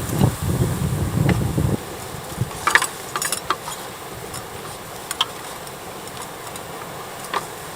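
Toyota FJ Cruiser engine running, then shut off about two seconds in, the low rumble stopping suddenly; a few light clicks and knocks follow.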